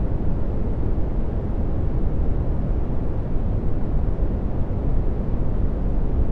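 Steady dark brown noise: a deep, even rumbling hiss heaviest in the bass and falling away smoothly toward the treble, with no rhythm or changes.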